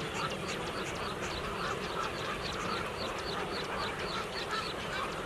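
A large flock of birds calling all at once: many short, overlapping calls repeated a few times a second over a steady background of the flock.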